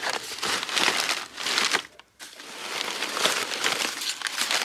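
Crumpled newspaper and packing paper crinkling and rustling as hands dig through a packed box and unwrap a china teapot. Two spells of crinkling with a short break about two seconds in.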